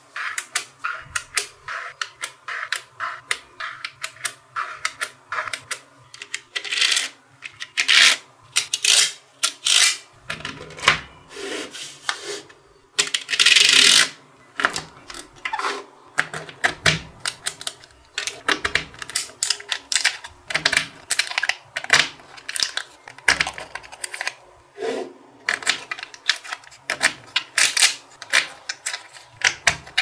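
Small metal magnetic balls clicking and snapping against one another as they are pressed into rows and slabs by hand, in quick irregular clicks, with a longer rattling burst about halfway through.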